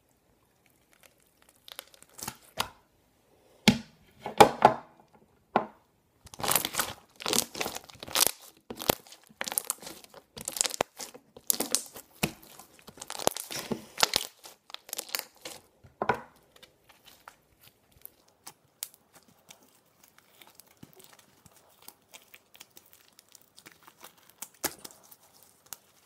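Stretchy blue slime being pulled apart and squeezed by hand, giving dense runs of crackling, popping tears. They fade to sparse faint clicks after about the middle.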